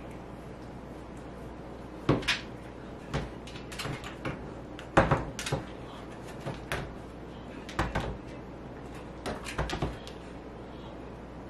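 A border collie pushing and pawing an empty collapsible dog bowl on a laminate floor, giving irregular knocks and clatters as the bowl hits and scrapes the floor, the loudest about five seconds in.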